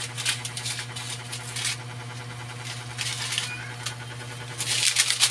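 Chicken pieces simmering in broth in a metal pan, with bursts of crackling from the cooking liquid over a steady low hum. The crackling swells twice and is loudest near the end.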